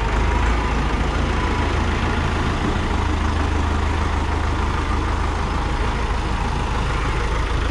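IMT P560 4x4 tractor's diesel engine running steadily as the tractor is driven and turned at low speed.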